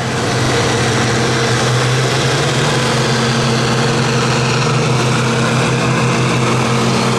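Turbocharged diesel engine of a John Deere pro stock pulling tractor running at a steady idle at the starting line, a deep, even drone that holds one pitch.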